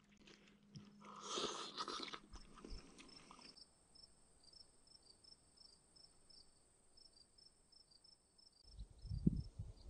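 Crickets chirping in an even, steady rhythm, about two high chirps a second. A brief rustling crunch comes about a second in, and low rumbles come in near the end.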